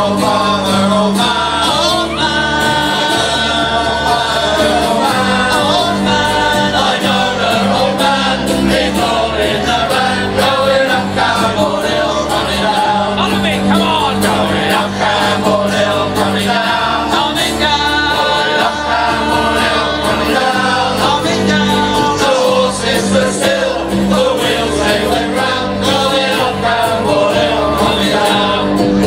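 Live folk band: men and women singing together in chorus over acoustic guitars, with a bass line that changes every couple of seconds.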